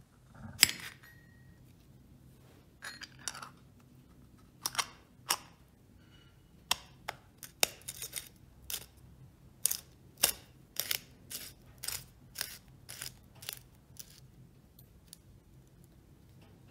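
Short sharp clicks and light metal knocks from a hand grease gun's knurled end cap and barrel being fitted together and screwed on. They come singly at first, then about two a second from about seven seconds in, and thin out near the end.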